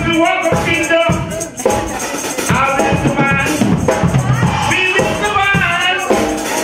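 A man singing into a handheld microphone, his voice carried over backing music with a steady beat.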